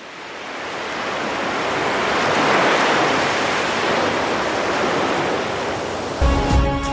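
A smooth rushing noise, like surf or wind, fades in from silence, swells over the first two to three seconds and then holds steady. Music with a beat comes in near the end.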